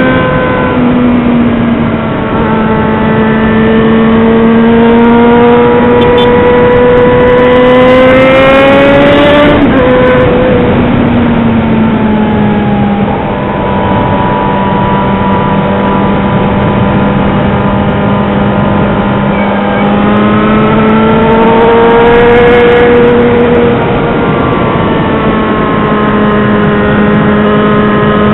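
Yamaha XJ6's 600 cc inline-four engine running loud under way, its note climbing steadily for about ten seconds, then dropping sharply at a gear change and holding fairly steady, with a smaller rise and fall later.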